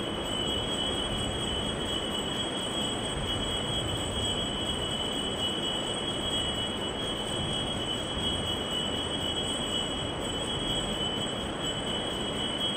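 A steady high-pitched tone, two close pitches together, starts suddenly and holds unchanged over a constant rushing hiss.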